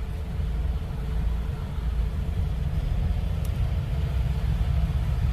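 A motor vehicle running with a steady low rumble, under an even hiss.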